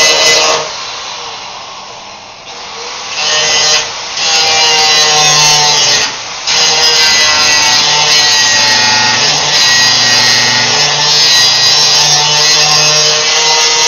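Power grinder grinding down welds on sheet-steel trunk metal, its motor note wavering with the load. It lets off about half a second in and winds down, spins back up about three seconds in, and has two short breaks before running on steadily.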